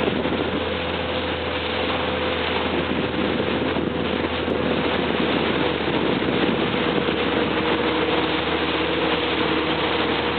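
Motorboat engine running steadily under way, holding an even pitch, with a rushing hiss over it.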